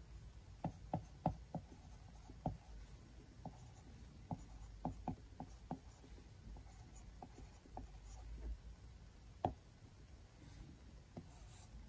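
Plastic stylus tip tapping and dragging on an iPad Pro's glass screen during handwriting: faint, irregular sharp ticks as each stroke touches down, with one louder tap about nine and a half seconds in.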